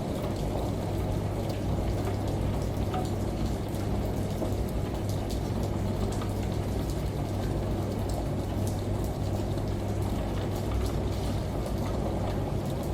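Steady rain with many scattered drops ticking, over an even low hum from a washing machine in the mix.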